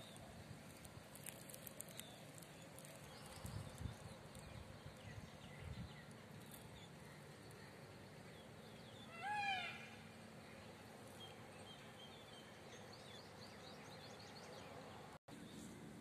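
Quiet garden ambience with faint bird chirps and a few soft thumps; about nine seconds in, a peafowl gives one short, loud call that rises and falls in pitch.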